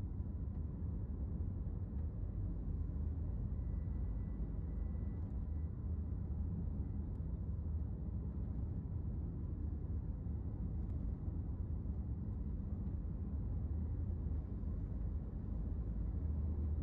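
Steady low rumble of a car driving at an even speed, heard inside the cabin: engine and tyre noise from the road.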